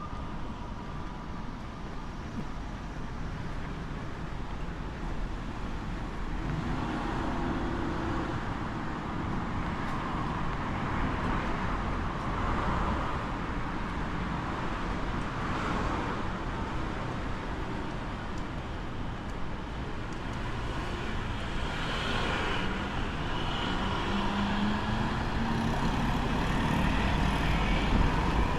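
Road traffic passing on a city street: a steady rush of cars and other vehicles that slowly grows louder, with an engine hum near the end.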